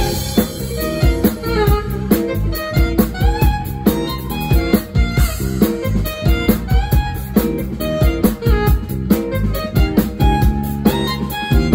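A small live band playing an instrumental number: a drum kit keeps a steady beat under a melodic lead line with sliding notes.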